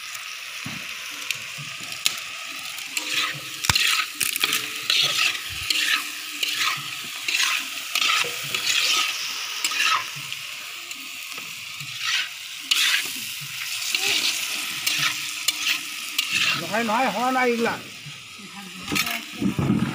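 Pieces of duck meat frying in a black wok, sizzling steadily while being stirred and scraped in repeated short strokes.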